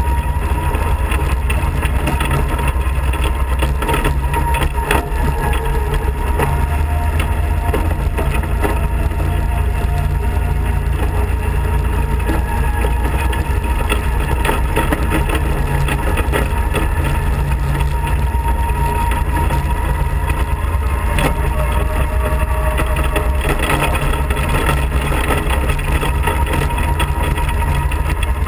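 Off-road kart engine running steadily while driving on a gravel road, heard from on board, with occasional knocks from the rough surface.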